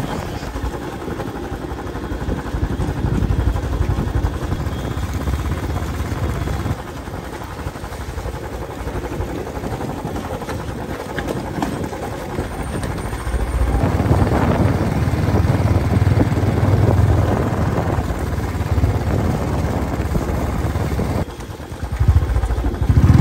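Royal Enfield Bullet motorcycle's single-cylinder engine running at low road speed, heard from the rider's seat on a rough stony track. It gets louder about two-thirds of the way through, drops briefly near the end, then picks up again.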